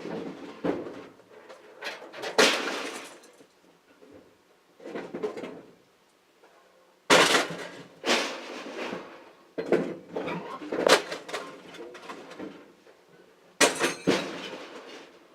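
Scrap metal being thrown off a truck onto a pile: irregular loud clangs and clatters, several sharp metal impacts with a short ring, and a quieter lull a few seconds in.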